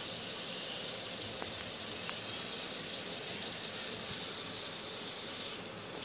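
Steady background noise with a hiss, and a couple of faint ticks.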